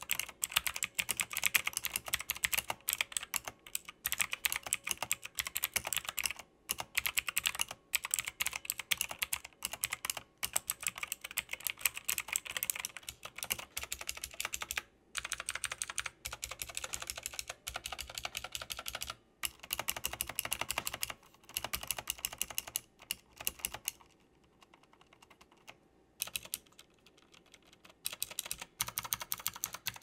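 Fast typing on a Tecware Phantom 87 tenkeyless mechanical keyboard with hot-swappable Outemu switches: a dense run of key clacks with short pauses, and a lull of a few seconds near the end before the typing starts again. The reviewer finds its factory stabilizers a little rattly.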